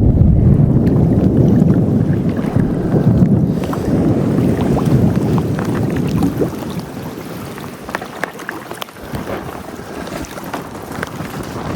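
Storm wind gusting hard on the microphone, a heavy rumble that eases after about six seconds, while the first raindrops of the thunderstorm start ticking in scattered, increasingly frequent taps.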